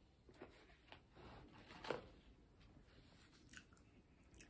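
Faint chewing and eating sounds, with a few soft clicks and a slightly louder one about two seconds in; otherwise near silence.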